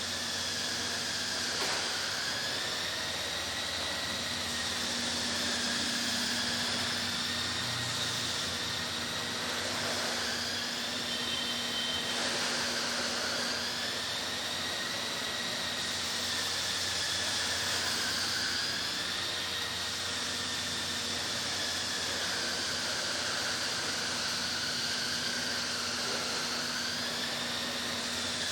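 Toy RC monster truck's small electric motor whining as it drives, the pitch rising and falling smoothly every few seconds over a steady hiss.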